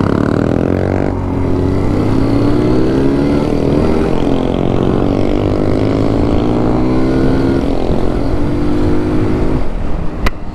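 Kawasaki Z125's small single-cylinder engine accelerating hard through the gears from a stop. The revs climb, drop at a shift about a second in, climb again and step down once more later on.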